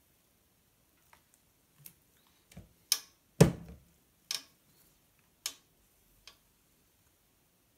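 Handling of plastic squeeze bottles of pancake batter: scattered light clicks and taps, with one louder knock and a dull thump about three and a half seconds in, as one bottle is put down and another picked up.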